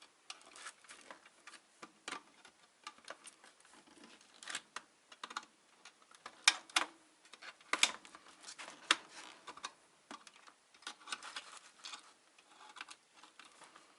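Irregular small clicks and scrapes of metal parts against plastic as the outlet contacts of a UPS are worked loose from their plastic housing, with a few louder clicks about halfway through.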